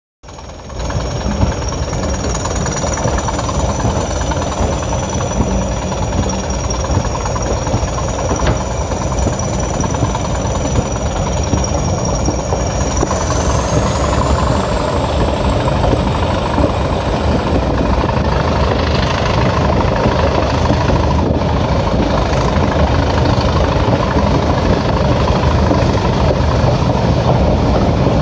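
Two Class 20 diesel locomotives working hard up a gradient, heard from the carriages behind: the English Electric engines' steady heavy running mixed with the rush of the train on the rails. A thin high whine runs over it and rises in pitch about halfway through.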